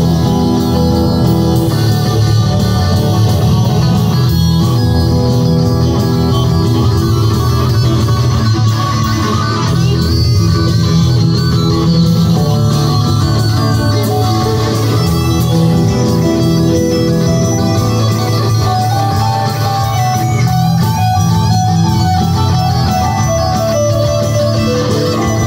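A live band playing loud rock, with an electric guitar playing lead lines of held notes that move in pitch.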